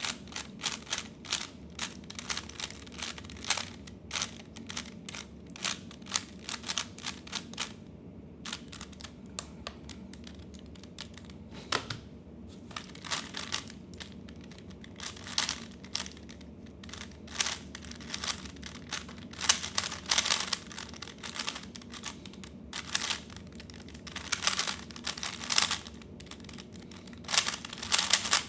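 3x3 speedcube being turned fast by hand: rapid runs of plastic clicking and rasping as the layers snap round, in bursts with short pauses between them, as during a timed speedsolve.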